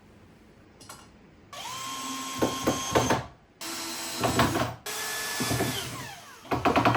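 Power drill driving screws to mount drawer slides, running in about three bursts with a steady whine, spinning up and winding down between them.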